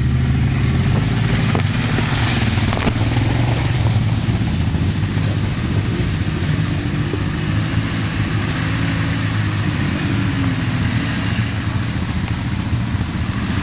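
Quad bike (ATV) engines running at low revs, a steady low drone with only small changes in throttle.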